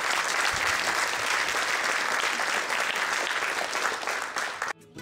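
Audience applauding steadily after a talk, cut off suddenly near the end.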